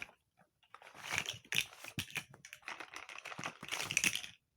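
Small plastic Lego bricks and their packaging being handled: a quick, irregular run of clicks, rattles and crinkles, starting about a second in and lasting about three and a half seconds.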